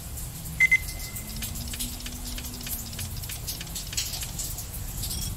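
Steady rain with many small drop clicks over a low rumble. Two short high beeps a little over half a second in are the loudest sounds.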